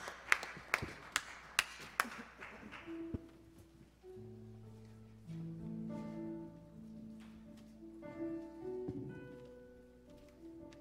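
End of a gospel number: a steady beat of sharp percussive hits, about two and a half a second, stops about two seconds in. From about four seconds the church band's keyboard plays soft, held chords.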